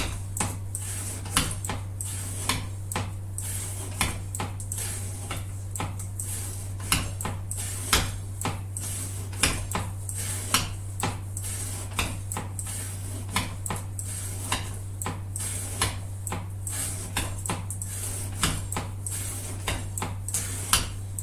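Irregular light metallic clicks and clinks, one or two a second, over a steady low hum.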